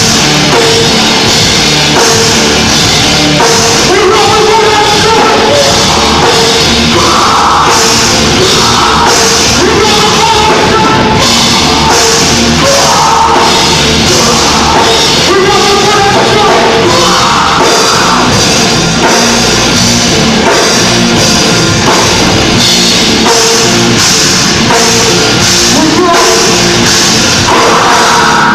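Heavy metal band playing: drum kit keeping a steady, fast beat under guitars, with singing over it.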